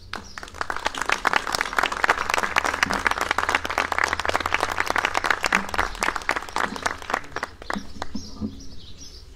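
Audience applauding: dense clapping that starts at once, is fullest through the middle, and thins to a few scattered claps near the end.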